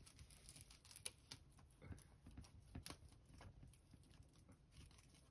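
Near silence with faint, scattered scratches and ticks: a Syrian hamster's small paws and claws moving over fleece and cardboard. Two sharper ticks come about a second in and near three seconds.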